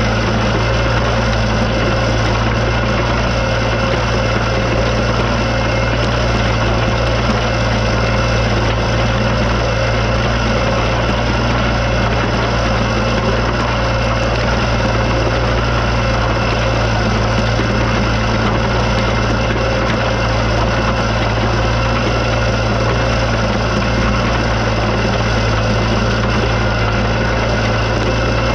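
Ditch Witch RT40 ride-on trencher running steadily while it digs a trench, its engine under constant load as the digging chain cuts and the spoil auger throws dirt aside.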